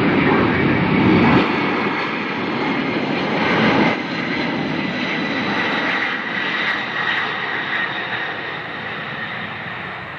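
McDonnell Douglas MD-11 freighter's three turbofan engines at takeoff thrust as it accelerates down the runway: a loud jet roar with a steady high whine, loudest in the first few seconds and then slowly fading as it passes.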